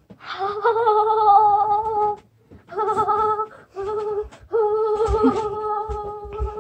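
A child's voice humming a tune in long, level held notes, in four phrases with short breaks between them. A few low thumps come in the second half.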